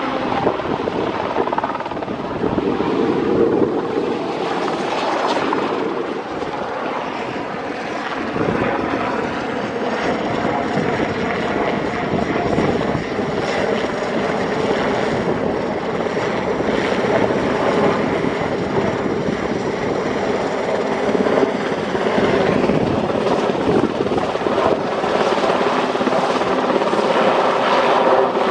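Westland Sea King helicopter flying a display pass overhead: steady main-rotor and twin Rolls-Royce Gnome turboshaft noise, holding at a fairly even loudness throughout.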